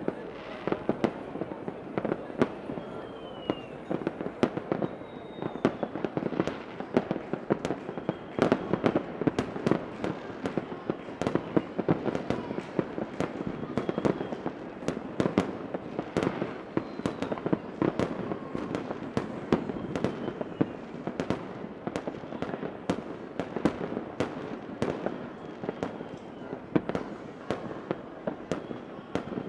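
Continuous fireworks: many sharp bangs and crackles at an irregular rate over a steady rumble, with a few short, faint whistles.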